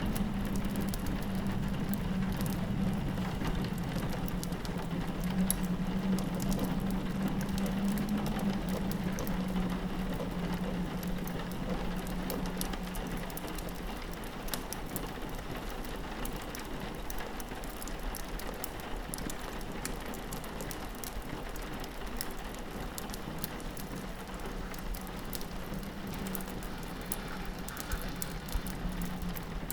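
Rain pattering steadily on a window, mixed with the small pops and crackles of a wood fire. A low wind drone runs underneath, fading about halfway through and returning near the end.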